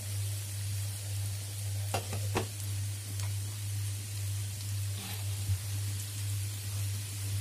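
Halved baby potatoes, sliced onion and green chilies sizzling steadily in hot oil in a nonstick frying pan. A steady low hum runs underneath, with a couple of light ticks about two seconds in.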